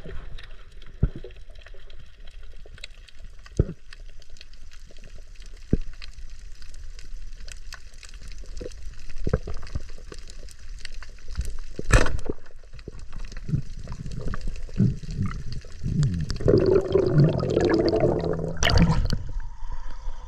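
Underwater sound of a diver swimming over a coral reef: muffled water hiss scattered with small clicks and knocks, and one sharp crack about midway. Near the end the water noise grows louder and rougher, with heavy splashes as the diver reaches the surface.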